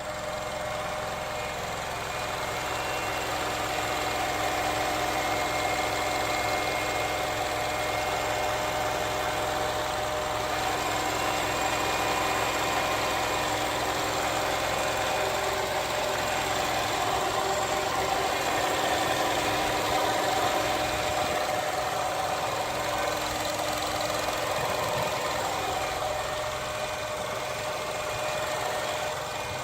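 Nissan X-Trail engine bay running with an abnormal humming drone: several steady tones held over the engine noise. The owner traces the hum to the transmission on a car with under 10,000 km.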